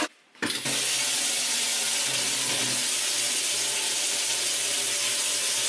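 Tap water running steadily into a stainless steel kitchen sink, starting about half a second in.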